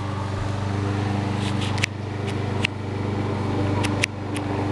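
Four sharp pops over a steady low hum, fitting an overcharged lithium-polymer (LiPo) battery crackling as it burns.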